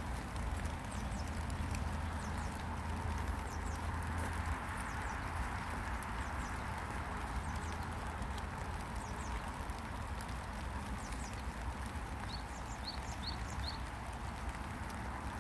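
Light spring rain falling steadily, with short high bird chirps scattered through it, including a quick run of four about twelve seconds in. A low rumble of car traffic sits underneath and is strongest in the first few seconds.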